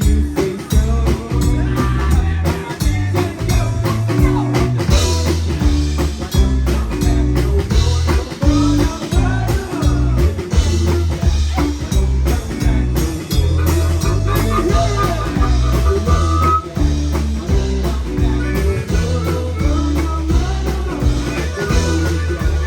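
Live band playing with a steady beat: drum kit and bass guitar driving the rhythm, with guitars over them.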